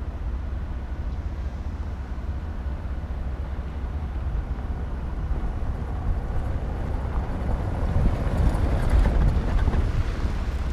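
A passing vehicle swells in louder over a steady low rumble, loudest about nine seconds in, then eases off.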